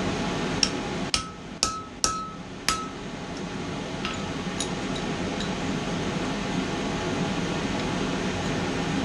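Hand hammer striking steel on an anvil: five quick blows in about two seconds, several leaving a short metallic ring, then a few lighter taps.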